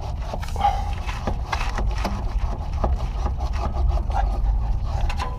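Scattered clicks, light knocks and scrapes of hand work on a car's front suspension control arm, over a steady low rumble.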